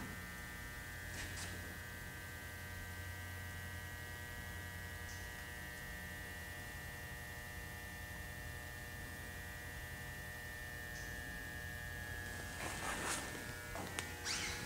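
Steady electrical mains hum, with a few faint rustles near the end.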